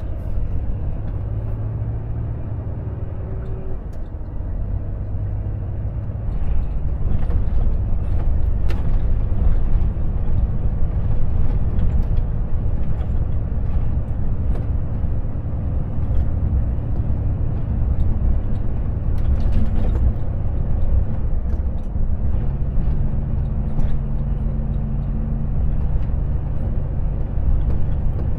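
Volvo FH truck on the move: a steady low engine drone and road rumble, growing louder about six seconds in, with the engine note shifting pitch as the revs change.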